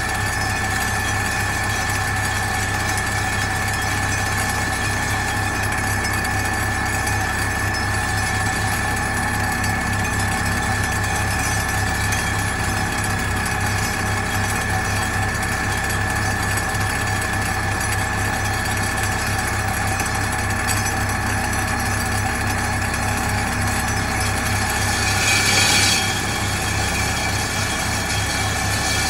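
Pile-driving rig running steadily: the drone of the hydraulic vibratory pile hammer and the crane's diesel engine, with a constant high whine. A short, louder hiss comes about 25 seconds in.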